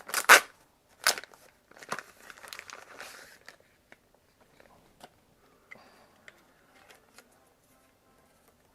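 Plastic and paper packaging being handled while accessories are unpacked: a few sharp crinkling, tearing rustles in the first three seconds, the loudest at the very start. Only faint light taps and clicks follow.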